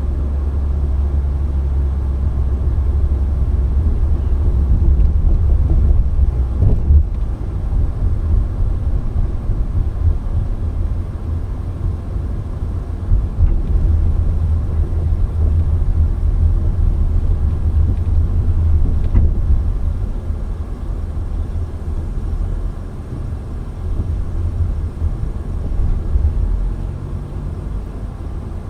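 Steady low rumble of a car driving along city streets, heard from inside the moving car.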